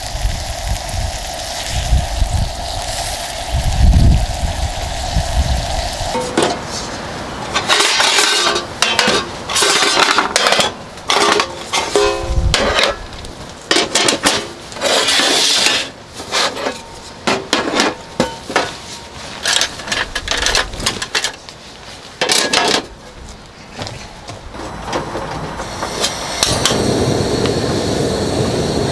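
Steady rushing noise with low rumbles for the first six seconds, then many short clinks and knocks of dishes, pots and utensils being handled and set down. A steady hiss comes in near the end.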